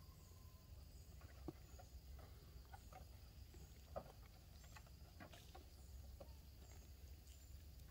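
Near silence with faint outdoor ambience: a soft high chirp repeating every second or so, and a few light taps and knocks, the sharpest about one and a half and four seconds in.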